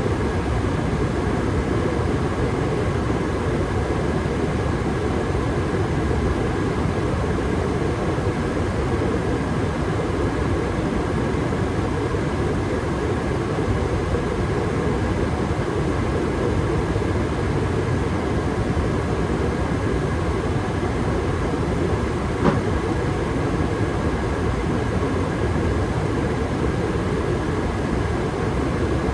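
Gas furnace running at steady state with its burners firing and circulation blower on: a steady, even rumbling rush. One short click about three-quarters of the way through.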